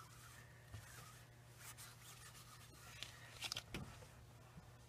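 Near silence: faint scrapes and rustles of hands wiping across a glass craft mat, a little louder about three and a half seconds in, over a low steady hum.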